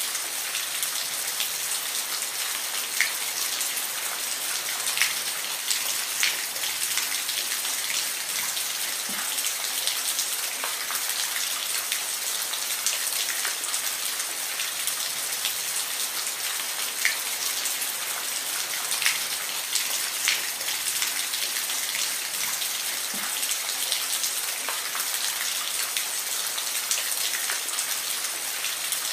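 Steady rain falling, an even hiss scattered with many individual drops tapping on a surface.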